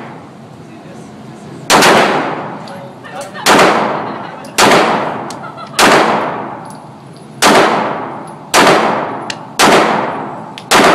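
Handgun fired eight times at a steady pace, roughly one shot a second. Each shot is sharp and followed by a long echoing decay.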